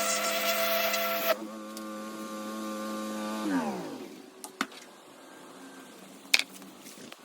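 Pressure washer running with its spray hissing; the spray cuts off about a second in and the machine runs on steadily, then is shut off, its pitch falling as it winds down to a stop. Two sharp knocks follow later.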